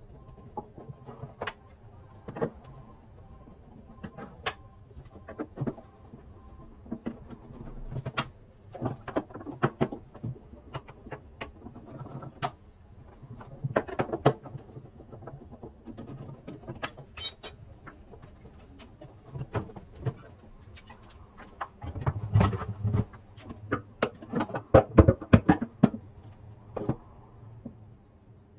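Irregular metallic clinks, taps and knocks of tools and parts being handled during a washing machine repair, with a louder run of knocks near the end.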